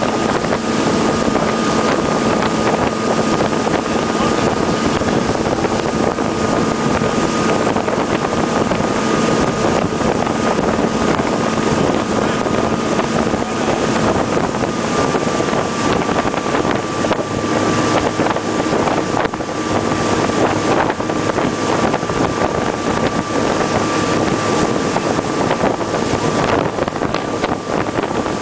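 Rigid inflatable boat's engine running steadily at speed, its note dipping slightly about halfway through, with wind buffeting the microphone.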